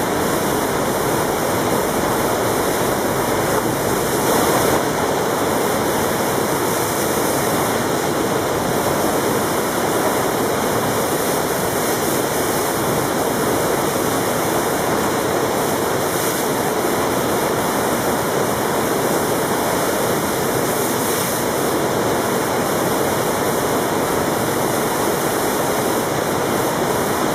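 Fast river water rushing steadily through a standing wave and breaking into whitewater.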